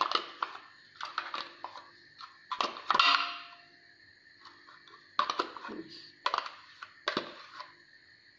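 A metal spoon scraping and tapping plain yogurt out of a plastic yogurt pot into a glass mixing bowl, in irregular clusters of clicks and scrapes, the loudest about three seconds in. A faint steady high whine runs underneath.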